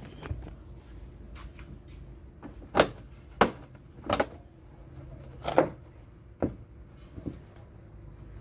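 Plastic clip tabs of a TV's front bezel snapping into place as the frame is pressed down onto the LCD panel: about half a dozen sharp clicks, starting about three seconds in and growing fainter near the end.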